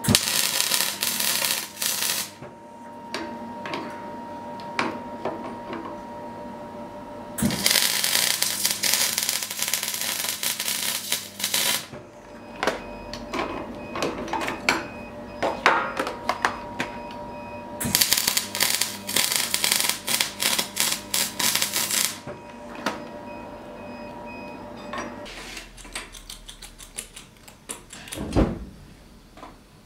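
Electric arc welding on steel held in a bench vise: three spells of crackling arc, each a few seconds long, with clicks and taps between. Near the end comes a quicker run of ticks and a single knock.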